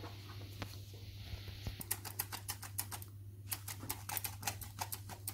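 Hand-operated metal flour sifter clicking as it sifts icing sugar. The clicks start about two seconds in and come fast, about six a second, with a brief pause in the middle.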